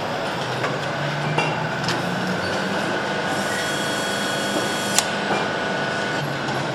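Steady factory-floor machinery noise on a motorcycle engine assembly line, with a faint high whine and a few light tool clicks, and one sharp click about five seconds in.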